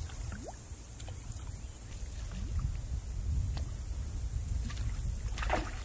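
Topwater lure being worked across calm water, giving a few faint, short water blips and gurgles, with a slightly stronger one near the end, over a low steady rumble.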